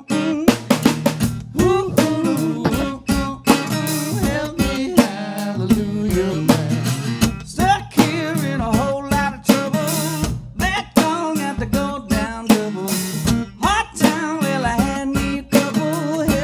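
Live band playing the instrumental opening of a song: guitar over a drum kit keeping a steady beat.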